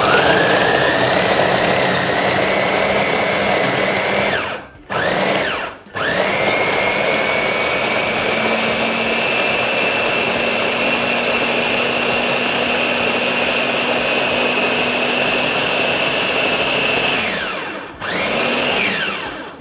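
Electric food chopper's motor grinding tomatoes, red chillies, shrimp paste and oil into sambal. It runs in pulses: a run of about four seconds, a brief pulse, a long run of about eleven seconds, then a short final pulse. Each run has a whine that climbs as the motor spins up and drops as it stops.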